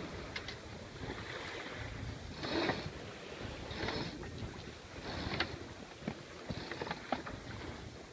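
Wind over a sailboat with the partly lowered mainsail's loose cloth flapping, a short rustling burst about every second and a half.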